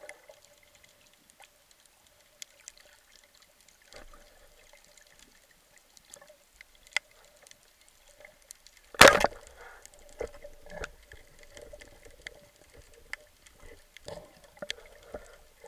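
Underwater ambience: a faint steady hum with scattered sharp clicks. About nine seconds in, a single loud sharp crack of the band-powered speargun firing at a sea bream, followed by a few smaller knocks and rattles.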